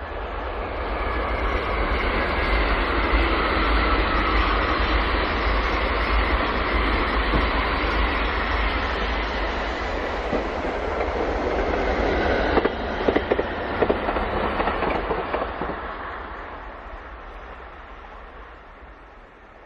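A Thunderbird limited express electric train (681/683 series) passing at speed, its running noise building up, holding steady, then fading away. A quick run of sharp clacks comes about 13 seconds in as the wheels cross a rail joint.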